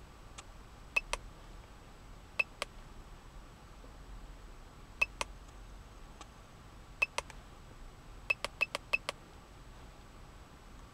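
KD900 remote key programmer's keypad beeping as its buttons are pressed: short high beeps with clicks, mostly in quick pairs, with a faster run of several about eight seconds in.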